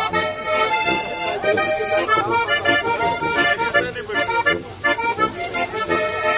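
Bavarian brass band (Blasmusik) playing traditional music, with held chords over a steady beat.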